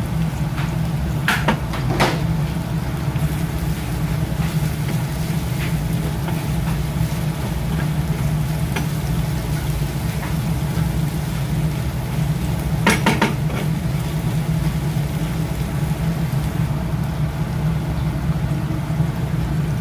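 Food sizzling in a pan over a steady low hum, with a few short clinks of a utensil against the pan: two about a second and two seconds in, and a quick cluster about thirteen seconds in.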